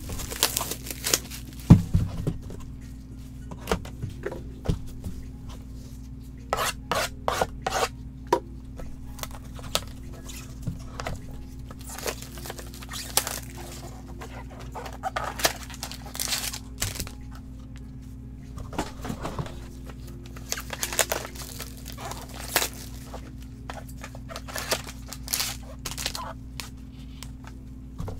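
Plastic shrink wrap crinkling and a cardboard trading-card box being handled and opened, with scattered sharp clicks and taps over a steady low hum.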